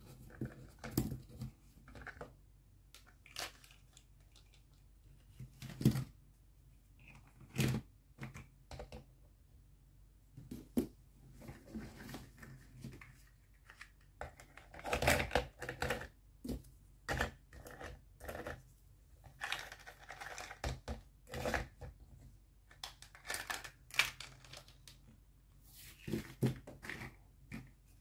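Plastic toy cookware clacking and scraping on a plastic toy stove: a pan and spatula handled, in scattered irregular clicks and knocks with a few short rustling scrapes.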